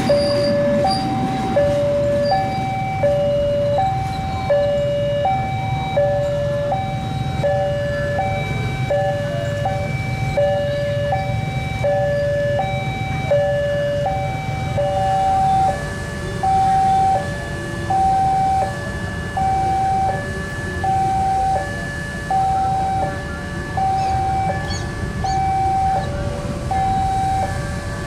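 Electronic two-tone railway level-crossing alarm sounding, a higher and a lower tone alternating steadily, with the low rumble of a passing train under it that eases about halfway through.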